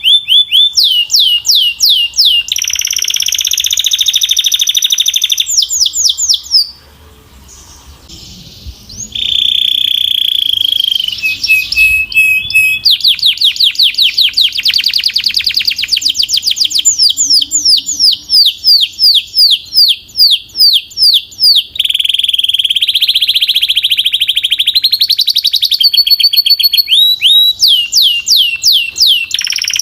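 Domestic canary singing a loud, continuous song: runs of fast repeated falling notes alternating with steady buzzing rolls, with a short break about seven seconds in.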